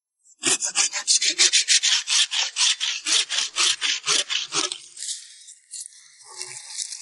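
Hand pruning saw cutting through a green tree branch in quick back-and-forth strokes, about five a second. After about five seconds the strokes give way to softer, lighter scraping.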